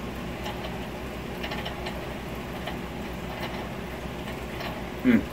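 Close-up chewing of a burger sandwich, with faint, scattered wet mouth clicks over a low steady hum. Near the end comes a short, louder voiced 'mm' that falls in pitch.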